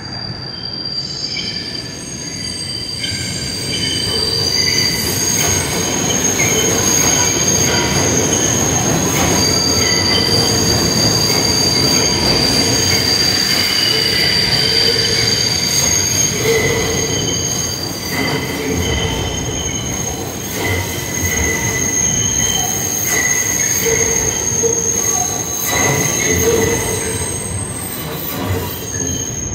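New York City Subway train running through an elevated IRT White Plains Road Line station, its steel wheels squealing on the rails in long, steady high-pitched tones over a loud rumble. The sound builds over the first few seconds, then holds.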